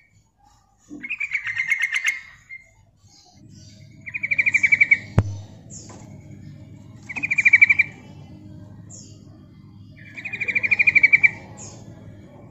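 Yellow-vented bulbul (trucukan), a female by the uploader's account, calling in four bursts of rapid chattering notes, each about a second long and a few seconds apart: the call a female gives to draw a male, used as a lure. A single sharp click sounds just after the second burst.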